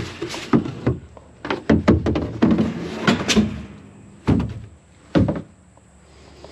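A run of sharp metal knocks and thunks, about a dozen over five seconds, as parts of a combine are handled and banged.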